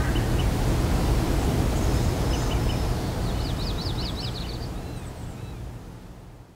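Outdoor nature ambience: a steady rushing noise with a few short bird chirps and a quick warbling bird trill about three seconds in, fading out near the end.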